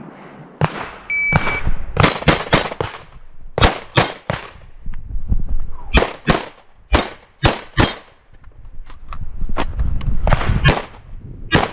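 An electronic shot timer gives a short start beep about a second in. A shotgun then fires a fast string of well over a dozen shots, in quick clusters with brief pauses between them.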